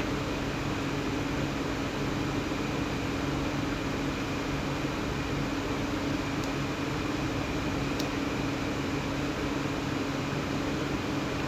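Steady mechanical hum with a low tone, like a running fan or air conditioner, unchanging throughout. A couple of faint clicks past the middle.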